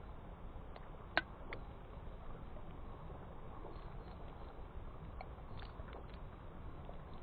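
Ice cracking and pinging: one sharp, ringing crack about a second in, a second soon after, and a few fainter ticks later over a steady low rumble.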